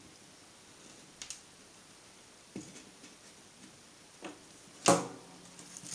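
Small carbon brushes from an angle grinder being handled and set down on a metal bench top: a few light clicks and taps, with one sharper knock about five seconds in.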